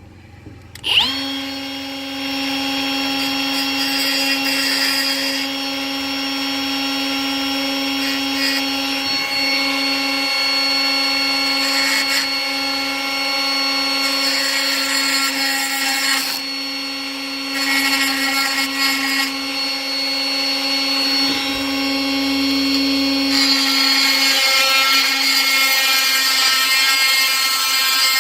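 High-speed rotary tool with a carbide burr spinning up with a rising whine about a second in, then running at a steady high whine while grinding into a door lever's split spindle to cut a bigger set-screw indent. The grinding noise comes and goes in stretches over the steady whine.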